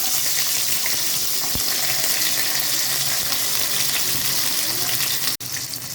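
Sliced small onions sizzling steadily in hot tempering oil with mustard seeds, cumin and fenugreek. The sizzle cuts out abruptly near the end and comes back softer.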